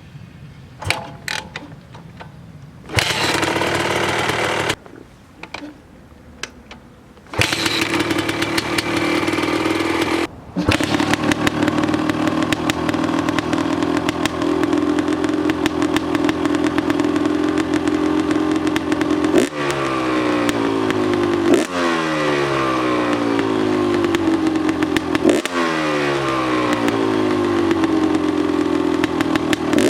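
Two-stroke single-cylinder engine of a 2003 GasGas EC 250 enduro bike with a Pro Circuit full exhaust. A short burst of running, then running steadily, with its pitch sweeping up and down every two or three seconds in the second half.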